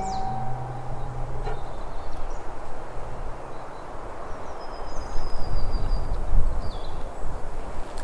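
Outdoor ambience: a steady low rumbling noise, heavier about five to six seconds in, with a few short high bird chirps.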